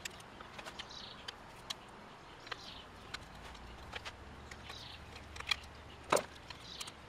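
Scattered light clicks and taps of small metal parts and a tool as the contact-breaker points are worked off a 1969 Triumph Trident's points plate, with a sharper knock about six seconds in.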